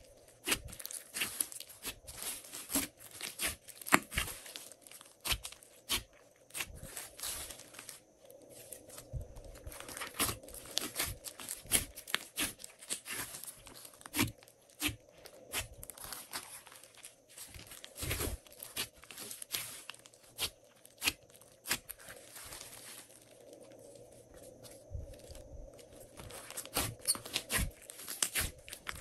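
Glossy slime being squeezed and stretched by hand, making a dense run of sticky crackles and pops that thins out briefly twice.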